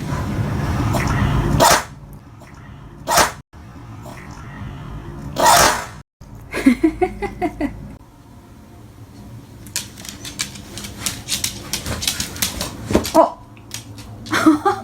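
A Boston terrier sneezing three times, a second or two apart, set off by dust stirred up while it tossed its toys about. A run of quick light clicks follows later.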